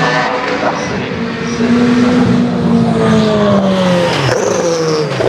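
Group C prototype race car engines running at speed. About two seconds in, one car's note rises briefly, then falls steadily for a couple of seconds as it goes by, with another engine audible underneath.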